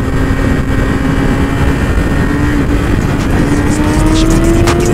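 Yamaha YZF-R6's inline-four engine running at motorway speed, its pitch climbing slowly and steadily as the bike gently accelerates, under strong wind rush on the helmet-camera microphone.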